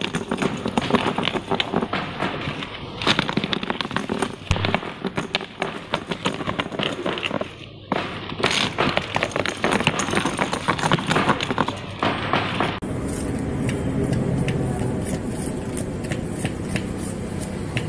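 Small metal needle roller bearings clinking and rattling against each other as they are handled and stacked at speed. About two-thirds of the way through, this gives way to a knife chopping onions: sharp repeated knocks over a steady hum.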